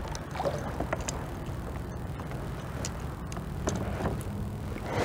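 Wind rumbling on the microphone and water lapping around a kayak, with a few light clicks and knocks scattered through as a hooked trout is played beside the boat.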